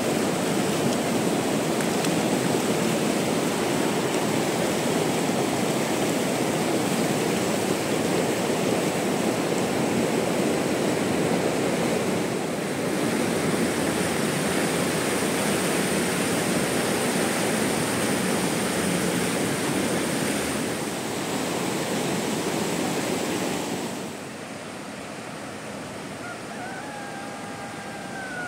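Steady rushing noise of heavy rain, which falls away sharply about 24 seconds in. Near the end a cat gives a short meow.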